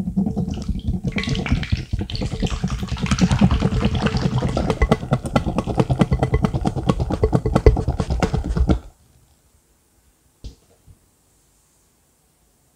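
Cream being whipped by hand with a pink balloon whisk in a glass bowl, whipped toward stiff peaks: fast, even strokes of wet sloshing with the whisk tapping against the bowl. It stops suddenly about nine seconds in, and one faint knock follows a little later.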